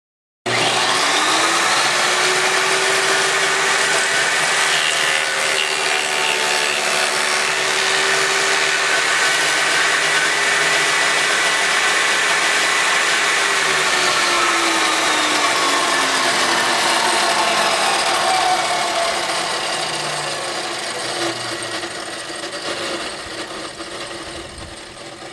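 Jobsite table saw starting up, running at full speed with a steady whine, then switched off about fourteen seconds in and winding down, its pitch falling as it fades.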